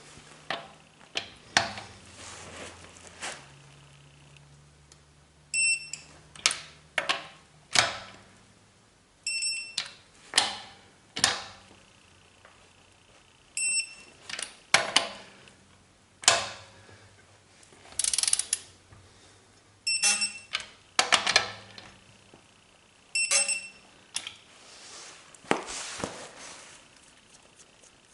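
A series of sharp clicks and knocks, irregularly spaced, with about five short high-pitched electronic beeps among them.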